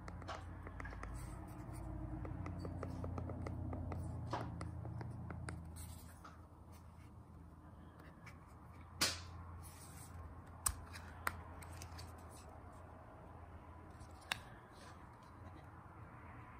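Handling noise from a plastic projector remote turned over in the hands, with soft clicks of its buttons being pressed early on. After that come a few sharp plastic clicks, at about nine, eleven and fourteen seconds in, as the battery cover is taken off.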